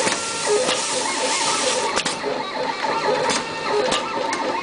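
Automatic cable stripping machine running: its motor and feed rollers whir steadily, with sharp clicks about once a second as it cuts and strips lengths of two-layer cable. A high hiss eases off about two seconds in.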